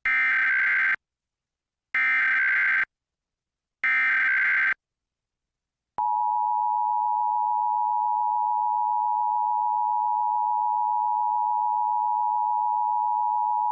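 Emergency Alert System test signal: three bursts, each about a second long, of the warbling digital SAME header data, then about six seconds in the steady two-tone EAS attention signal (853 and 960 Hz sounded together) begins and holds.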